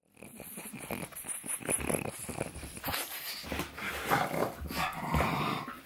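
Pug vocalising close by: a run of short, breathy noises, then longer pitched sounds in the second half.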